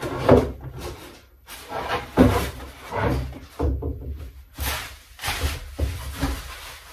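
Packaging and model parts being handled on a wooden workbench: a string of irregular knocks and rustles, with a few louder bumps.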